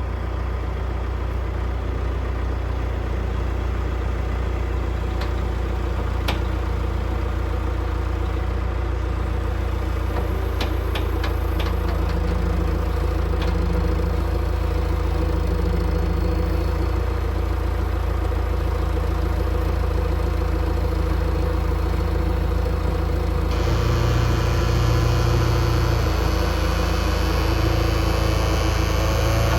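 A vehicle engine running steadily with a deep rumble, like a truck under way, with a few light clicks scattered through the first half. About 23 seconds in the sound turns brighter and slightly louder.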